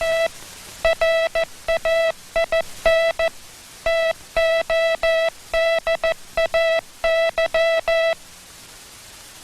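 Morse code keyed as a steady mid-pitched beep in short dits and longer dahs, sent as an example of how letter and word spacing changes a message. The beeping stops about eight seconds in, leaving a low hiss.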